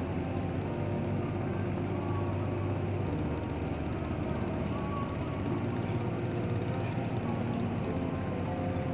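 Steady low rumble of a boat engine running on the river, even in level throughout.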